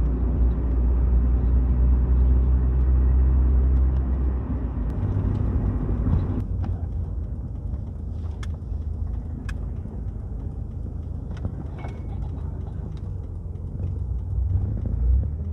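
Nissan Sentra B14's SR20VE engine and exhaust heard from inside the moving car: a loud steady low drone for about four seconds, then easing off and getting quieter, with a few light clicks. The car has a known exhaust leak at the downpipe.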